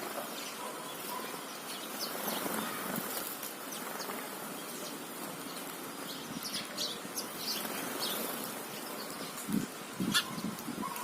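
House sparrows chirping in short, scattered calls over a steady background hiss, with a couple of soft low thumps near the end.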